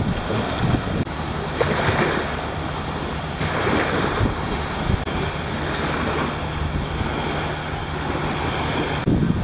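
Sea waves washing in repeated swells, with wind buffeting the microphone.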